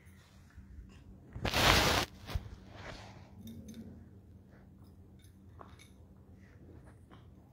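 Phone handling noise: a brief loud rustle against the microphone about a second and a half in, a click just after, then faint scattered rustles and clicks as the phone is repositioned, over a low steady hum.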